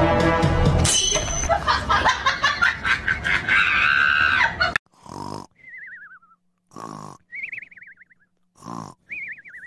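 Background music until it cuts off suddenly about five seconds in. Then a sleeping cat snoring: a short rasping snore followed by a high, wavering whistle that falls in pitch, the pair repeating about every two seconds.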